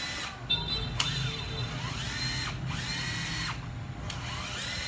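Hitachi DMR12V 12 V cordless driver run with no load, its trigger squeezed several times. Each time the motor whines up in pitch to full speed, holds briefly and stops. It runs quietly, a sign of a sound head with no play in it.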